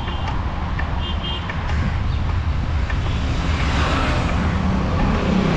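Road noise from passing traffic with a steady rumble of wind on the microphone of a moving rider, and two brief high chirps near the start.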